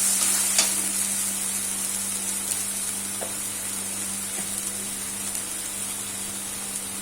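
Ground masala paste frying in hot mustard oil in a pan, a steady sizzle that is a little louder in the first second and then settles, with a few light clicks.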